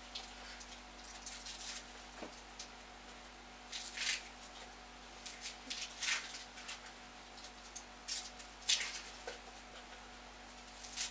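Dry onion skin crackling and rustling as an onion is peeled by hand, in irregular short scratchy bursts, the louder ones about 4, 6 and 9 seconds in.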